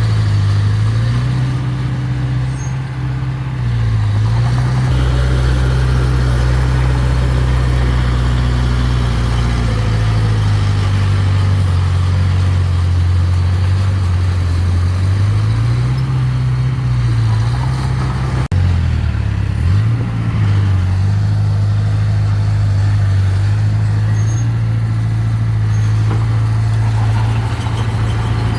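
Diesel engine of heavy construction machinery running steadily, its engine speed dipping and picking up again a few times, with a brief break about two-thirds of the way through.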